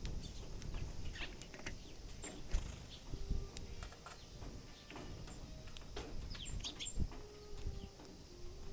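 Eurasian tree sparrows giving short high chirps, mixed with many sharp clicks of a sparrow pecking and chewing at food.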